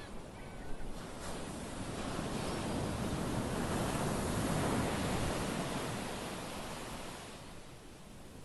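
Small waves breaking and washing up a sandy beach: the surf swells to a peak about halfway through, then fades.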